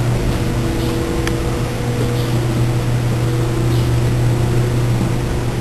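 Steady, loud mechanical drone of running plant machinery, a deep even hum with a few constant higher tones over it.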